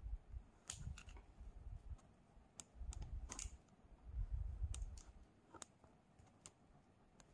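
Hot glue gun being worked over a plastic curd cup as glue is laid around its rim: faint, scattered sharp clicks with a few soft low knocks from handling.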